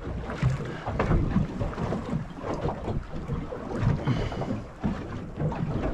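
Choppy water slapping irregularly against a small fishing boat's hull, with wind buffeting the microphone.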